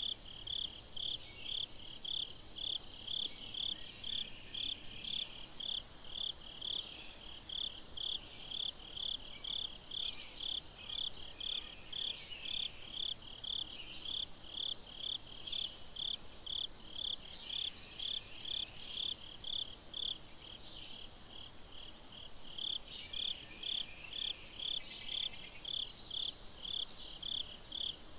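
A cricket chirping in an even, steady rhythm, a little over two chirps a second. A brief louder, higher-pitched sound stands out about three-quarters of the way through.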